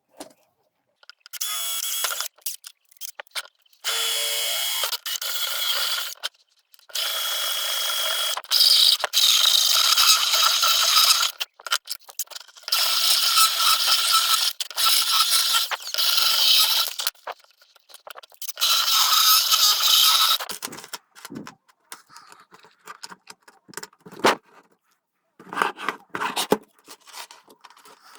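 A workshop tool working on material in repeated bursts of one to four seconds with short pauses between them, a harsh scraping hiss. Near the end it gives way to a few scattered clicks and knocks.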